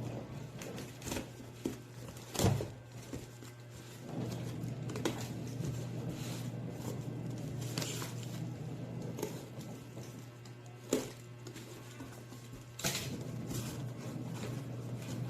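Packaging being handled and unpacked: scattered clicks, knocks and crinkles, the loudest about two and a half seconds in and again near eleven seconds, over a steady low hum.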